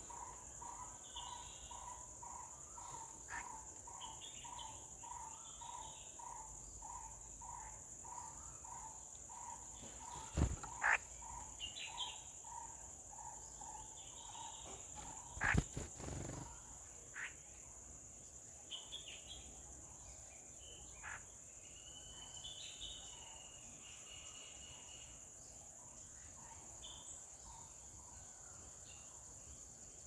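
Garden bird and insect sounds: a steady high drone of insects, a brown-headed barbet repeating one low call about twice a second through the first half, and other birds chirping. A few sharp knocks, the loudest sounds, come about ten and fifteen seconds in.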